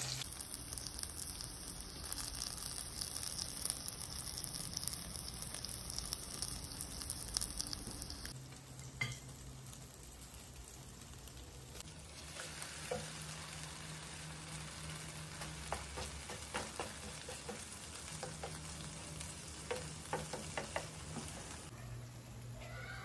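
Eggplant and egg omelette mixture sizzling as it fries in oil in a nonstick pan, with a utensil scraping and tapping the pan as the mixture is pressed and spread. The sizzle is louder in the first third, then softer, with scattered scrapes and taps later on.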